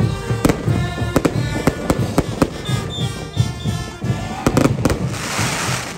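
Brass band playing saya caporal music, with sharp, loud drum strokes cracking over the melody and a bright hissing crash about five seconds in.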